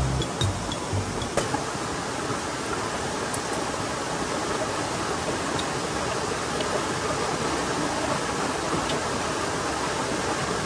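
Steady rush of flowing river water, with a few faint clicks now and then.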